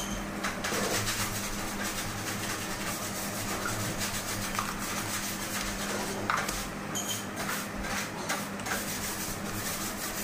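Cake-decorating handling sounds: a plastic cream tub being knocked and scraped, and a metal palette knife scraping whipped cream across a sponge layer, as a string of short clicks and scrapes over a steady low hum.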